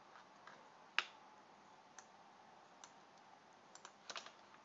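Faint computer mouse and keyboard clicks: one sharp click about a second in, a few scattered lighter clicks, and a quick run of keystrokes near the end.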